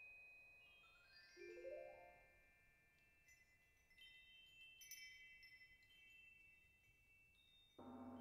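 Solo percussion: soft, high, bell-like mallet-percussion notes ringing, some gliding upward in pitch in the first few seconds. Near the end a sudden louder low roll with a fast pulse comes in.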